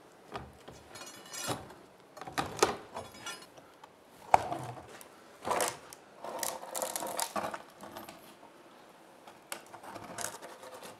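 Irregular scraping and knocking of wood as a long tool is worked against an old timber fixing in a wall, with a sharp knock about four seconds in.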